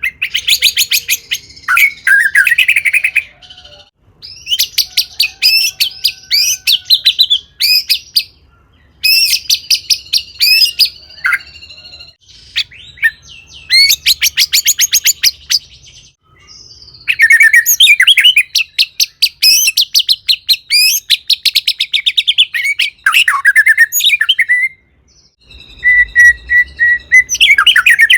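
White-rumped shama singing in a fast, loud run of phrases: rapid trills and chattering notes mixed with sweeping whistles, in bursts of a few seconds with short pauses between. This is the full, varied song that bird keepers call "gacor", full of imitated calls of other birds.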